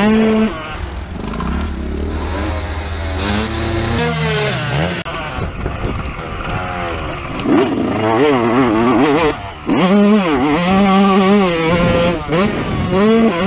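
A 2019 Yamaha YZ125's two-stroke single-cylinder engine, heard from a helmet camera, revving up and dropping back again and again as the rider works the throttle and gears. About eight seconds in, the pitch warbles quickly up and down several times.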